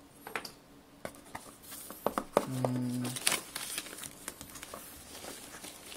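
Crinkling and rustling of the thin foam wrap around a boxed Blu-ray player as hands handle and pull it in the cardboard box, with scattered small clicks and taps.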